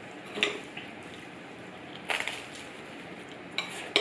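Metal cutlery clinking and scraping on ceramic plates: a few short, separate clinks, with a quick cluster about two seconds in and two more near the end.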